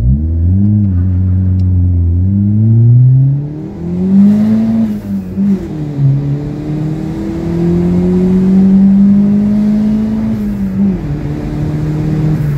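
Turbocharged Honda Civic D-series four-cylinder (D15Z4 block with a SOHC VTEC head) heard from inside the cabin, accelerating hard through the gears on a test drive after a head gasket replacement. The engine note climbs steadily and drops back at each upshift, about three times.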